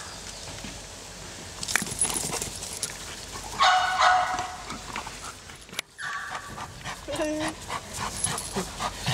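A working detection dog gives a short, loud yelp about a third of the way in and a shorter whine later, with small clicks and rustles between.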